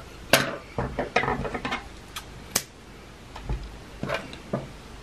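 Irregular light clicks and short rustles of hands working a small crochet piece with a hook and yarn.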